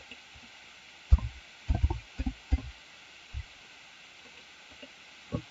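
A handful of soft, short taps on a computer keyboard as a file name is typed, most of them bunched together about a second in, with a couple of single taps later.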